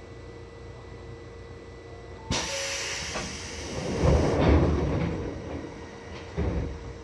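Seibu 2000 series train's pneumatic door gear: a sudden sharp hiss of air about two seconds in, then heavy rumbling thumps as the doors slide, and a shorter thud near the end.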